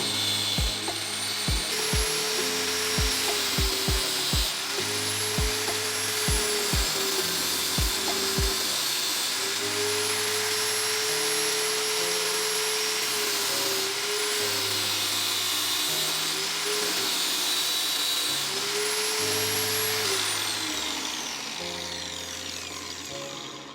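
Angle grinder fitted as a disc sander, running with a steady whine that dips and recovers as it is pressed against the work, then winds down about twenty seconds in. Background music plays over it, with a regular drum beat for the first eight seconds or so.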